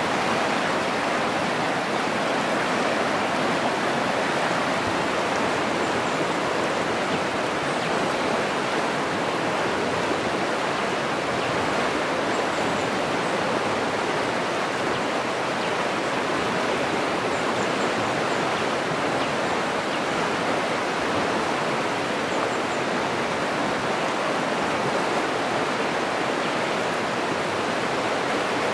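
Fast-flowing river rushing steadily over rocky rapids.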